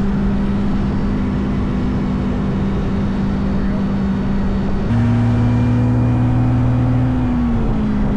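Steady engine drone with a constant hum over a low rumble. About five seconds in, a lower tone joins for a couple of seconds, then the hum dips slightly in pitch.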